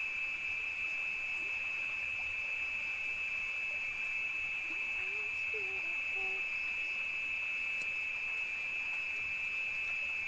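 Steady high-pitched chorus of night insects in a tropical forest, with a few faint short low calls about halfway through.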